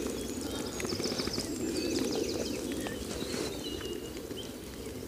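Small birds chirping and singing in many short calls, over a steady low rushing noise.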